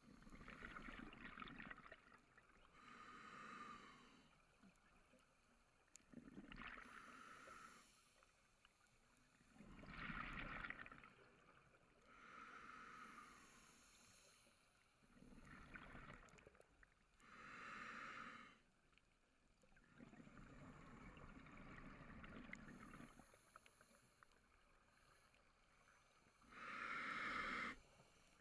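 A scuba diver breathing through a regulator underwater: inhalations and exhalations come and go every few seconds, with short quiet gaps between breaths.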